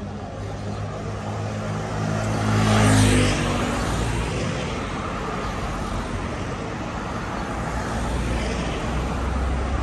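Cars passing close by on a city street: the loudest goes by about three seconds in, its engine hum giving way to a rush of tyres. A deeper vehicle rumble builds near the end.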